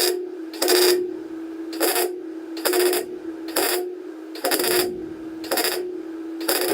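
MIG welder stitch-welding a sheet-metal patch panel in short bursts of crackling arc, about one a second, with the welder's steady hum between them.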